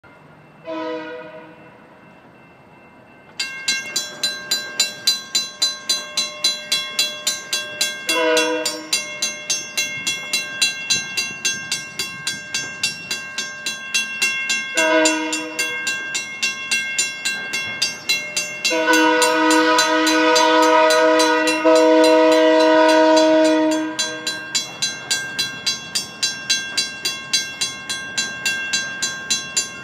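Railroad crossing's WCH mechanical bell starts ringing about three seconds in and keeps up a fast, even clang as the crossing warning activates. Over it a BNSF locomotive's horn sounds three short blasts several seconds apart, then one long blast held about five seconds.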